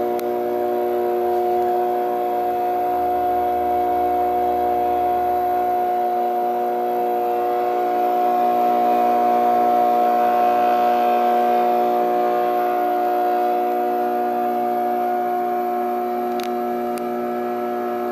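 OYO TechStyler thermal film imagesetter running as it images a job, its film drive giving a steady whine of several pitches at once as the printed film feeds out. Two faint ticks come near the end.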